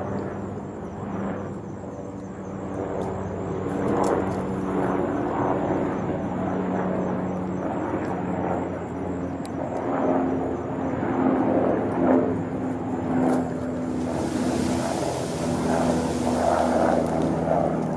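Steady engine drone with several held tones that shift in pitch now and then; a hiss joins it for a couple of seconds near the end.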